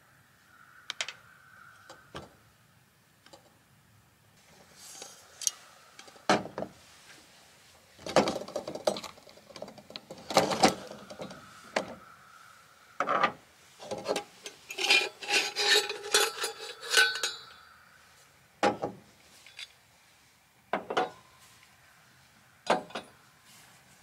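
Camp cookware being handled: scattered clinks and knocks of pots, lids and utensils, with a run of quick rattling clatter a little past the middle.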